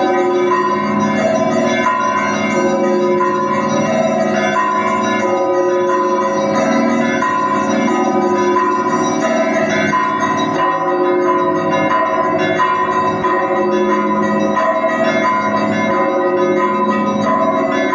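Russian Orthodox monastery bells ringing a festal peal: many bells of different sizes struck over and over in a steady, continuous pattern, small high bells ringing over deeper ones.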